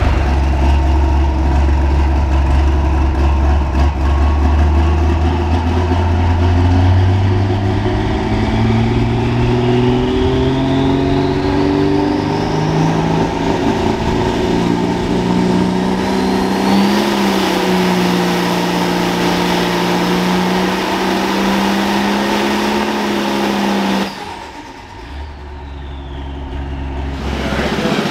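Turbocharged pulling-tractor engine on a dyno: it runs at a low steady pitch, then revs up over several seconds while the turbo's whine climbs, and holds at high revs under load. Near the end the engine is suddenly cut back to a low idle while the turbo whistle winds down.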